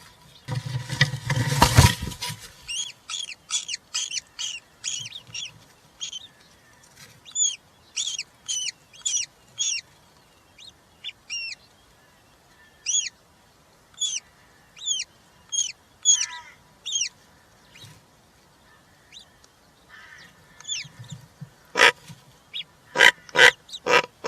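European roller nest box: a loud scuffle of movement at first, then a long series of short, thin, rising calls from the roller chicks, about one or two a second. Near the end comes a run of louder, harsh, rasping calls.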